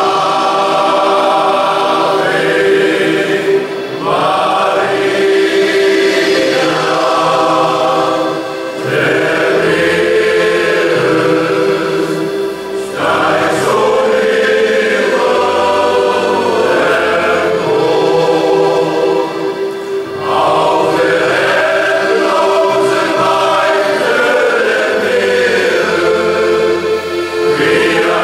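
Men's shanty choir singing in harmony, in long phrases over a note held steadily underneath.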